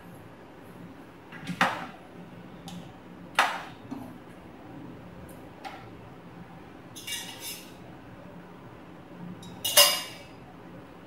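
Stainless-steel kitchen bowls and plates clinking and knocking as they are handled: a few separate clatters spread out, the loudest near the end.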